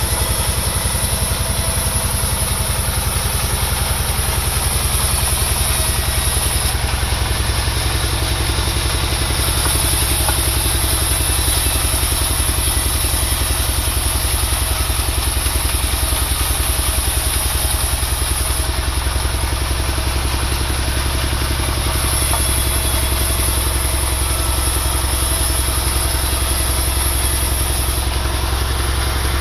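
Engine-powered wood saw running steadily through small timber. A constant engine drone underlies it, and a high hiss rises and falls in level every few seconds.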